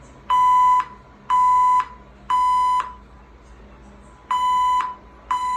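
Building fire alarm sounding the temporal-three evacuation pattern: three half-second electronic beeps a second apart, a pause, then the next group of beeps begins near the end.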